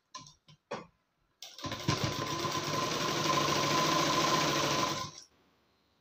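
Domestic sewing machine running steadily, stitching a folded fabric strip down on a blouse. It starts about a second and a half in after a few brief ticks, runs for about three and a half seconds with a steady whine, and stops suddenly near the end.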